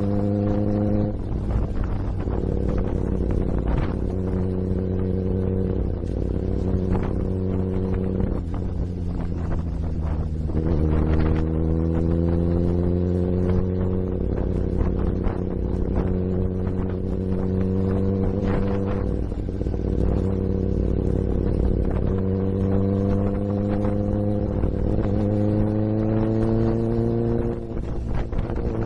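Kawasaki ZX-10 sportbike's inline-four engine under way, holding a steady note whose pitch steps and climbs several times as the throttle and gears change, over rushing wind noise.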